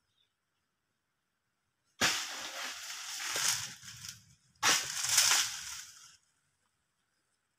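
Two sudden bursts of crashing, crackling dry palm fronds and leaves, the first about two seconds in and the second a little over a second later, each rustling on for a second or two.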